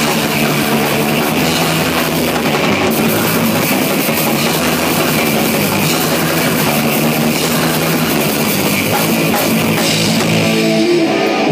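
Rock band playing live: drum kit with cymbals and electric guitars, loud and dense throughout. Near the end a single held note comes through the mix.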